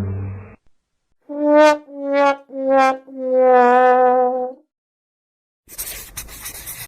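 Sad trombone sound effect: three short brass notes, each a little lower, then a long held lower note, the 'wah wah wah waaah' cue for failure. A burst of crackling noise follows near the end.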